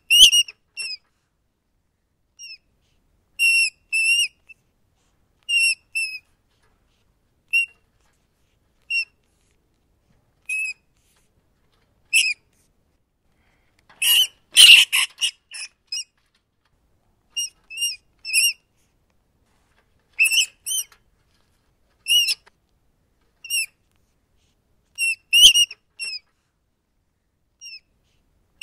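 Rats squeaking: short high-pitched squeaks, often in twos or threes, with a second or two of silence between them and a louder, denser flurry of squeals about halfway through.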